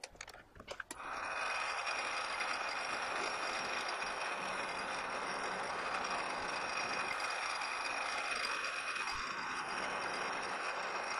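A few clicks as the drill is set up, then a metal lathe starts about a second in and runs steadily with a steady whine, drilling the 1/4-20 tap-drill hole into the hex nut blank with a drill chuck in the tailstock.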